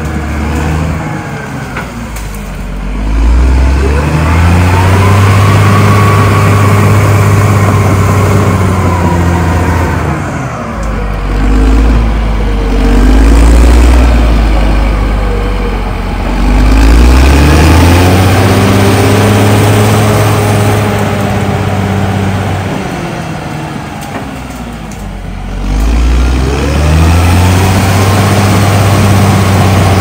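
Caterpillar D6R XL bulldozer's diesel engine working hard as the dozer pushes soil and logs, its pitch climbing and dropping three times in long surges.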